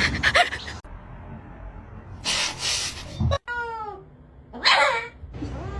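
A cat meowing: one short call falling in pitch, about three and a half seconds in, between other brief noisy sounds from separate clips.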